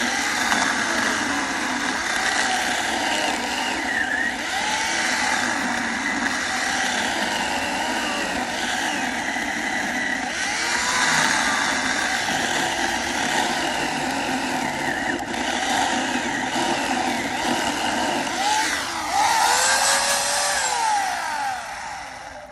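Electric chainsaw running and cutting wood, its motor pitch sagging and rising again as the chain bites and frees. The motor cuts off and winds down near the end.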